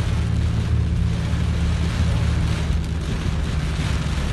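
Heavy rain falling on a car's roof and windshield, heard from inside the cabin, with the car's steady low rumble underneath.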